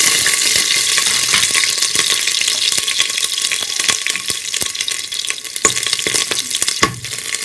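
Green chillies and whole tempering spices sizzling and spluttering in hot sesame oil in an open pressure cooker: a dense crackling hiss with sharp pops now and then. The sizzle eases slightly toward the end.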